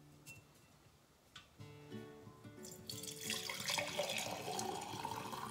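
Rose water poured from a stainless steel pot through a mesh strainer into a glass mason jar, starting about three seconds in, the splashing rising in pitch as the jar fills. Background music plays throughout.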